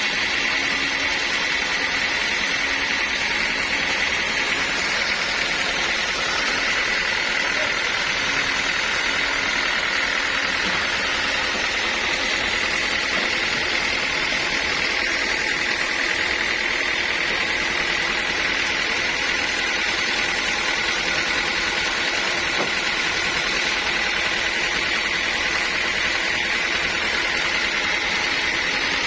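Sawmill saw running steadily, with a continuous high tone over machine noise.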